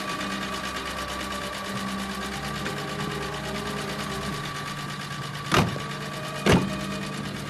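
Vintage car engine idling with a fast, even beat. About five and a half seconds in, two loud thumps about a second apart from the car door.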